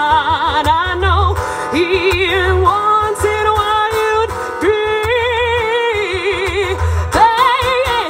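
A woman singing long held notes with wide vibrato, over a low bass accompaniment.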